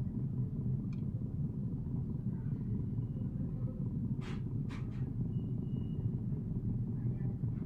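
JBL Go 5 portable Bluetooth speaker playing a low-frequency test track, a steady low hum with two faint ticks a little past the middle.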